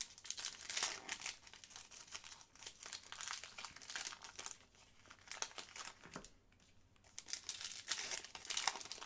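Crinkling and tearing of a trading card pack wrapper as a pack of Upper Deck Flair hockey cards is torn open and handled, in two stretches with a short pause in between.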